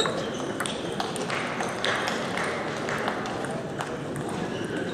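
Table tennis balls clicking irregularly off tables and bats, with a steady murmur of voices underneath.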